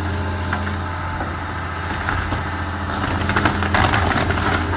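Heavy demolition machine's engine running steadily at a low hum, with a few faint cracks and knocks in the second half.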